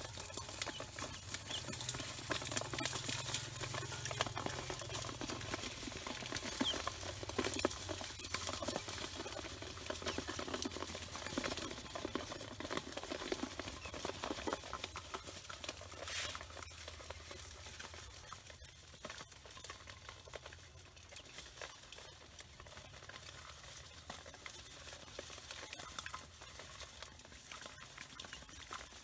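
Ducklings pecking and shuffling together: a dense patter of small bill clicks and rustling down, busier at first and thinning out over the second half.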